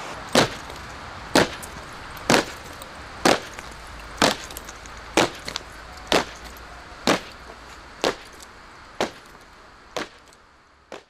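A sharp knock repeated at an even pace of about one a second, about a dozen in all, over a steady hiss, growing fainter toward the end.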